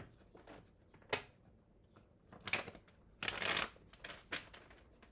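Tarot cards being shuffled by hand: a few short papery rustles, with a longer burst of shuffling about three seconds in.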